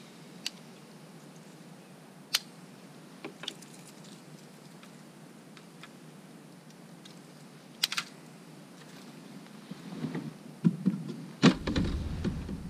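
A few sharp, scattered clicks as a casting rod and reel are handled. From about ten seconds in come rustling and knocks, with a heavy thud near the end as he turns in the plastic kayak seat.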